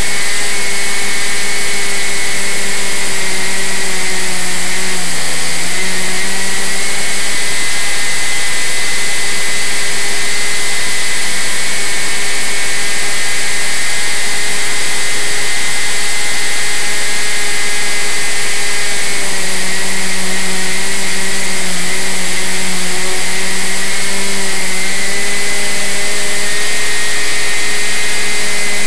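Model airplane's motor and propeller running steadily in flight, heard from a camera on the wing with air rushing past. The pitch dips briefly about five seconds in and sags slightly again later, as the throttle changes.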